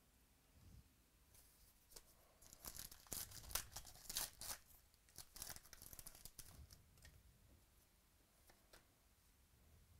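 Foil wrapper of a trading-card pack being torn open and crinkled by hand. A quiet burst of crackly tearing starts a couple of seconds in and is loudest around the middle, then gives way to faint rustling of the cards being handled.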